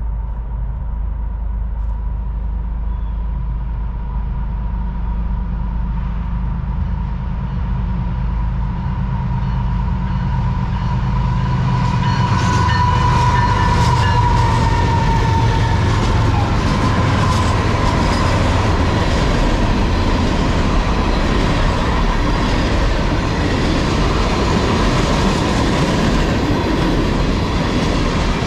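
CSX diesel freight locomotives passing, their low engine rumble growing louder as the lead units go by about halfway through. Then loaded tank cars roll past with a rapid clacking of wheels over the rail joints.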